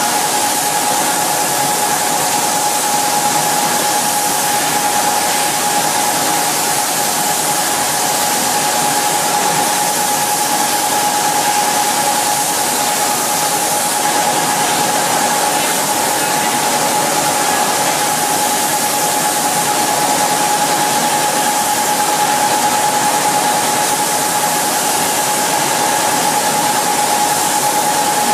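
Spray booth with automatic spray guns on a reciprocator atomising fluorocarbon paint: a steady hiss of air and spray with a constant whine running through it.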